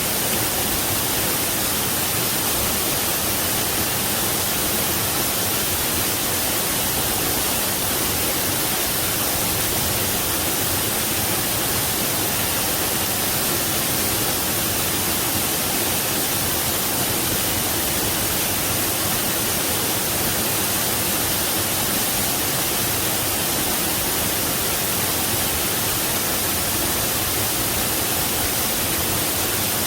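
Waterfall rushing in a steady, unbroken roar of water noise, strongest in the high hiss.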